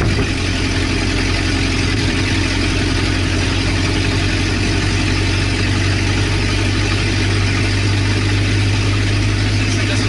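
Car engine running with no exhaust system while driving at a steady speed, a loud, even low drone heard from inside the cabin.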